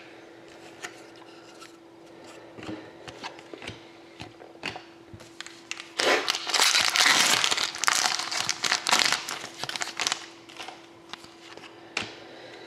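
Foil wrapper of a trading-card pack crinkling and tearing as it is opened, loud for about four seconds starting about six seconds in. Before and after it, faint clicks of cards being handled.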